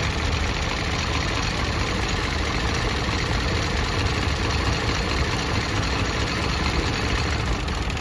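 Hyundai Venue's turbocharged three-cylinder petrol engine idling with a misfire, which the mechanic traces to weak spark from the plugs in cylinders one and two.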